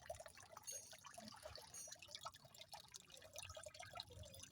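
Water fountain running, faint irregular splashing and dripping of falling water.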